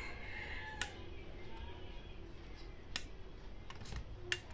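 Several sharp plastic clicks as the front-panel push buttons of a T-101KF power amplifier are pressed and the unit is handled, the last click the loudest, over a steady low hum.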